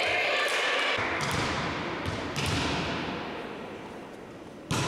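Volleyball knocks echoing around a large sports hall: a few scattered hits, then one loud, sharp smack of a ball being struck near the end, in time with the receiving team standing ready for the serve.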